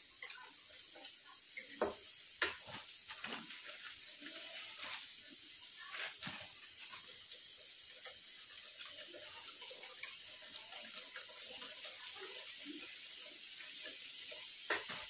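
Hand wire whisk beating curd in a steel bowl: wet swishing with scattered clicks of the wires against the steel, and two sharper clicks about two seconds in.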